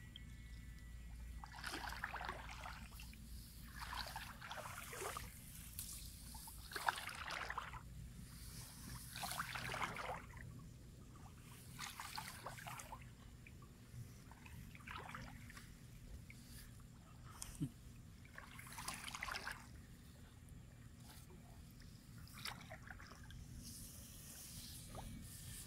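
Shallow paddy water sloshing and splashing in uneven swishes every second or two as a gill net is worked through the rice plants.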